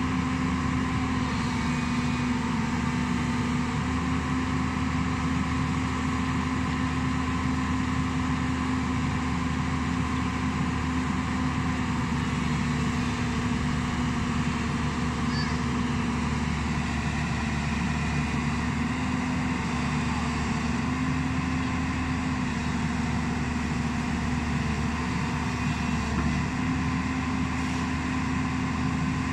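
JCB 205 tracked excavator's diesel engine running steadily at one even pitch, under load as the machine creeps itself onto a low-bed trailer.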